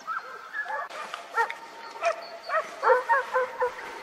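Several hunting dogs baying and yelping, giving tongue during a driven boar hunt, in many short cries that rise and fall in pitch and come thick and fast from about a second in.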